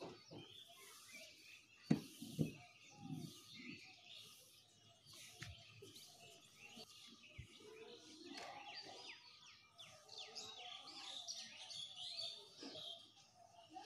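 Small birds chirping faintly, with many short chirps that grow busier in the second half. Two soft thumps come about two seconds in.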